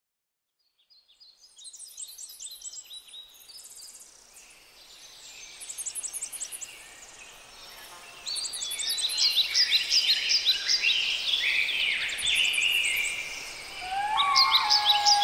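Many birds singing together, a dense chorus of chirps and short sliding calls that fades in about a second in and grows louder about eight seconds in. Near the end a wind instrument enters with a held note beneath the birdsong.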